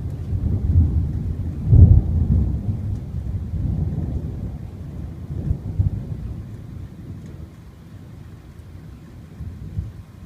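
Rolling thunder with rain falling: a deep rumble that peaks sharply about two seconds in, rolls on with a smaller surge near six seconds, then dies away.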